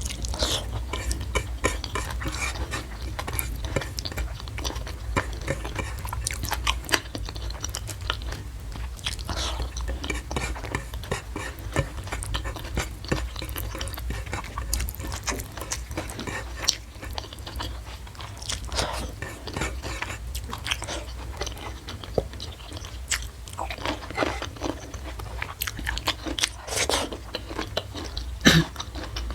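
Close-miked chewing and biting of crunchy food, a dense, irregular run of crisp crunches and clicks.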